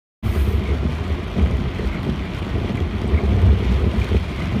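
Wind buffeting the microphone over a steady low rumble of a moving vehicle, starting abruptly just after the beginning.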